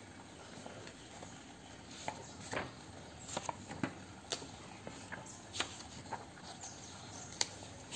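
Paper pages of a school textbook being turned by hand: irregular crisp rustles and soft page flaps, busiest from about two to six seconds in, with a sharp flick near the end.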